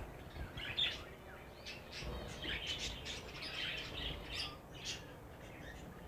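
Many small cage birds, budgerigars among them, chirping and chattering together: short high chirps overlapping one another, busiest from about two seconds in.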